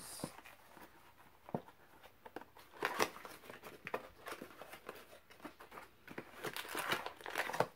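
Small gift box being opened by hand, its paper and packaging rustling and crinkling in scattered soft crackles and clicks that grow busier near the end.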